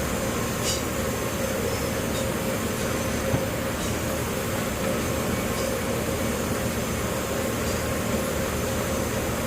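A steady mechanical hum and hiss, with a few faint ticks.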